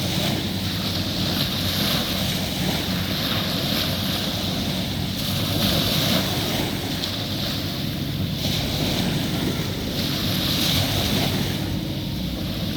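Surf washing onto a beach, with wind buffeting the microphone. The noise is continuous, swelling and easing every few seconds.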